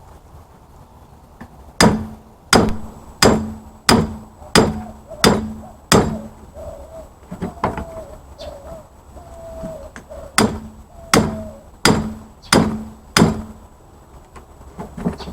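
Hammer blows on metal, each with a short ring: a run of seven strokes about two-thirds of a second apart, a pause, then five more at the same pace. A bird calls faintly during the pause.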